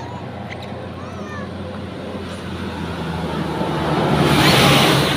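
A motor vehicle passing on the road: a steady engine drone that swells into a loud rush of engine and tyre noise, loudest about four to five seconds in, then starts to fade. A few short, faint chirps sound in the first second and a half.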